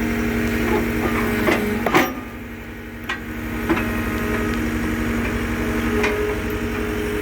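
Engine of a post-hole auger running steadily while the auger cleans out a freshly dug hole. A handful of sharp knocks come over it, the loudest about two seconds in, after which the engine briefly drops.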